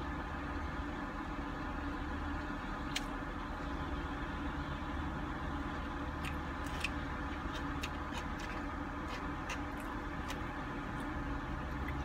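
Steady low hum of a car, with light clicks of a fork against a food container and chewing, scattered through the middle.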